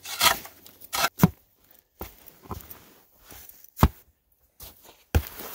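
A steel spade scraping and cutting into crunchy snow around a tree stump, with boots crunching in the snow and several sharp knocks.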